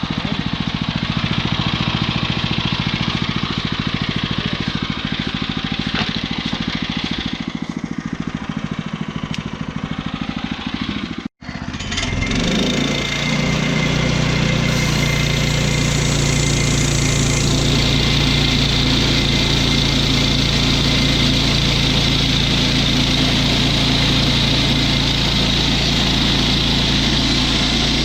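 Woodland Mills HM122 portable bandsaw mill's small gasoline engine running steadily. The sound drops out abruptly for a moment about 11 seconds in. It comes back steadier, with a high hiss over the engine.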